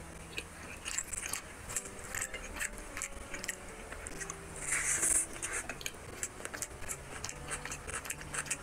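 Close-up eating by hand: fingers squish and mix rice with bitter gourd bhaji, with chewing and many small wet clicks and crackles, louder for a moment about five seconds in. Faint background music with slow held notes underneath.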